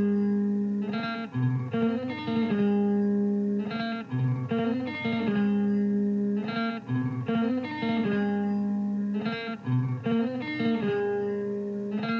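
Guitar music: plucked guitar notes in a repeating phrase over a low sustained note.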